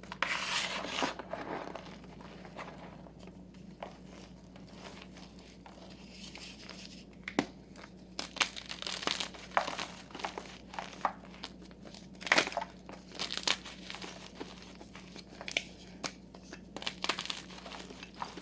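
Blocks of gym chalk crumbled and crushed by hand: dry crunching and crackling. There is a longer crumbling stretch at the start, then a run of sharp crunches through the second half.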